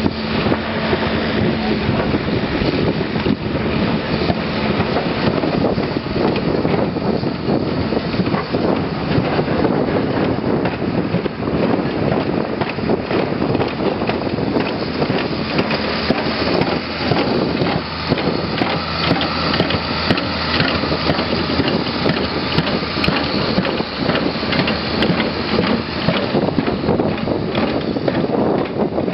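Heavy diesel machinery running on a concrete runway: first a Volvo tracked excavator, then a John Deere tractor towing a sweeper over the concrete. A steady dense machine noise with many small clicks and rattles, and a low engine hum in the first few seconds.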